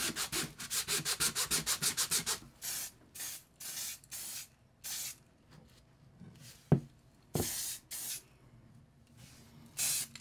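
Sandpaper rubbed by hand over a 3D-printed plastic part: quick, even back-and-forth strokes, about six a second for the first couple of seconds, then slower separate strokes. A sharp click comes about two-thirds of the way in, followed by a few longer bursts of noise.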